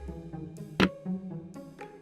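Background music: held instrumental notes with a drum hit a little under a second in.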